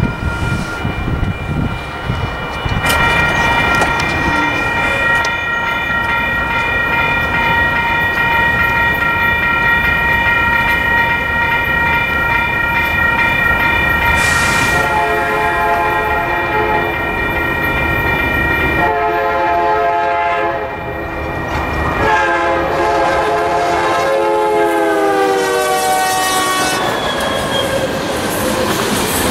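Railroad crossing bell ringing steadily, then a diesel freight locomotive sounding its horn three times for the crossing. The last blast is long and drops in pitch as the locomotive passes. It is followed by the rumble and clickety-clack of the locomotive and freight cars going by.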